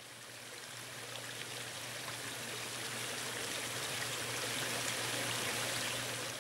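Small stream of water spilling over rock into a pool, a steady splashing and bubbling that swells gradually over the first few seconds.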